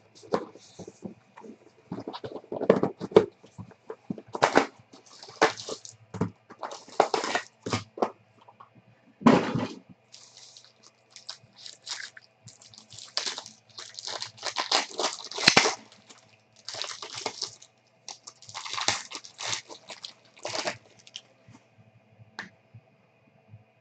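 Crinkling and crackling of plastic wrapping and cardboard packaging as a box and pack of football trading cards are torn open by hand. The rustles come in irregular bursts, loudest about nine and fifteen seconds in, and grow quieter near the end as the cards are handled.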